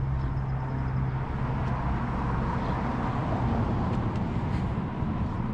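Road traffic noise: a steady wash of passing vehicles, swelling slightly midway, with a low engine hum that stops about a second in.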